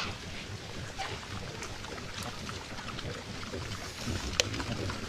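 A large herd of peccaries foraging together: a steady mass of rustling and low grunting with scattered small clicks, and one sharp click about four seconds in.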